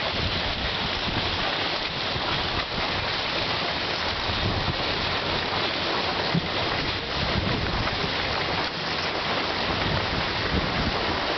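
Steady rushing hiss of skis sliding over packed snow, mixed with wind buffeting the microphone, as skiers are towed along at speed on a rope.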